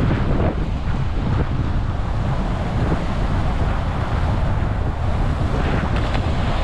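Strong wind buffeting the microphone over the steady noise of lake waves breaking against a breakwater.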